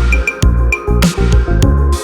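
Electronic background music with a heavy bass line and a steady, punchy beat.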